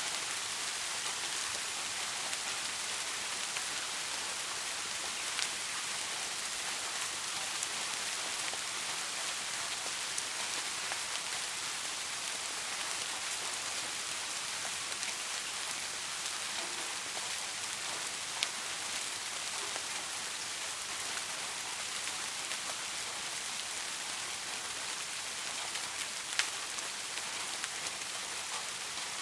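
Steady rain falling on hard surfaces, an even hiss with a few louder individual drops ticking.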